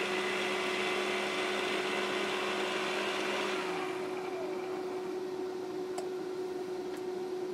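G-scale LGB Mars Flyer model locomotive with MTH Protosound 2 electronics, its motor running with a steady whirring hum, then winding down with a falling whine about halfway through as it comes to a stop. A steady hum carries on afterwards, with two sharp clicks near the end.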